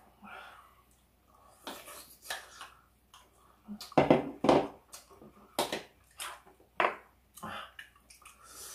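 Eating utensils clinking and knocking against dishes, a string of short, sharp clinks, loudest about four seconds in.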